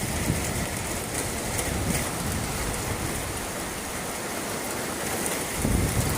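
Heavy rain pouring down in a summer thunderstorm, a steady hiss. Gusts of wind rumble on the microphone at the start and again near the end.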